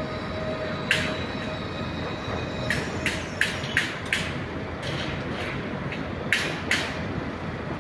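A train running slowly through the station: a steady rumble with sharp clacks of its wheels over rail joints, several coming in quick pairs.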